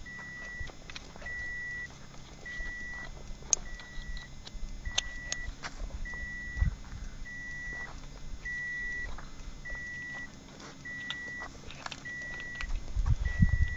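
Car's warning chime beeping over and over, one short steady tone about every 1.2 seconds, with light clicks and knocks of handling.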